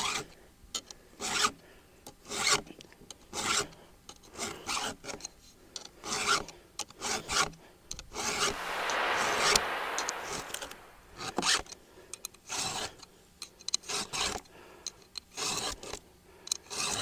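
Round file rasping across the cutter teeth of a chainsaw chain in short push strokes, about one a second, with one longer scraping stretch about halfway through.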